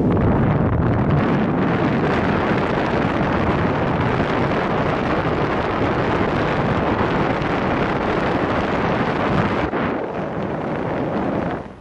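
Steady rush of airflow over the camera microphone of a paraglider in flight. The noise drops away sharply near the end.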